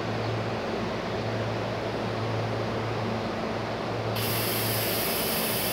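SEPTA Silverliner electric commuter trains at a station: a steady low electric hum over a rumbling background, joined about four seconds in by a sudden loud, steady hiss.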